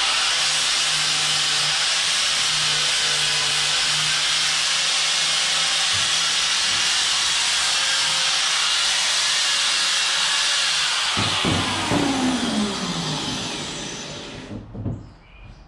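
Corded angle grinder grinding a metal bar: a loud, steady hiss over a low motor hum. About eleven seconds in it is switched off and the motor winds down with a falling whine over a few seconds, and a brief knock follows near the end.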